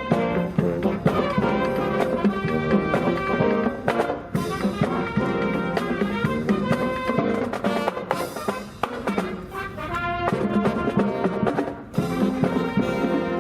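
Fire department marching band playing live: trumpets and trombones over snare and bass drums, with a few brief dips in volume between phrases.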